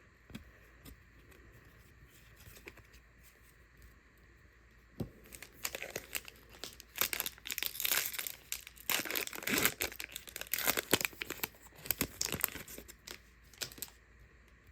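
A foil trading-card pack wrapper crinkling and tearing, with dense irregular crackles starting about five seconds in and going on for some nine seconds.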